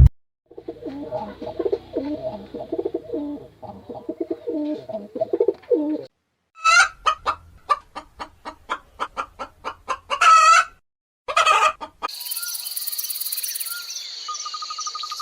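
Chickens clucking in a busy run of short low clucks, then a string of sharp repeated calls with a few louder squawks. About twelve seconds in it changes to a steady high shrill chirring like insects.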